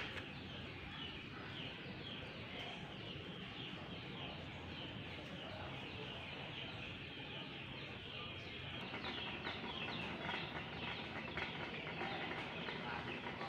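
Chickens and other birds calling: many short falling chirps, coming thicker in the second half, over a low steady hiss.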